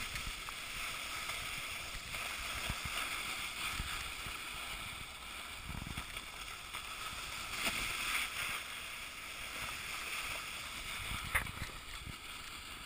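Steady scraping hiss of a rider sliding down a packed-snow ski slope, edges running over the snow, with a single sharp click a little over eleven seconds in.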